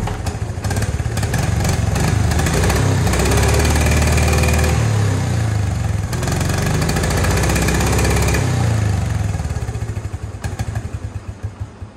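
Honda TRX70's small single-cylinder four-stroke engine running through its stock exhaust. It is revved up and back down twice, then slows into separate putts and dies out near the end, a sign that the aftermarket carburettor would not make it run properly.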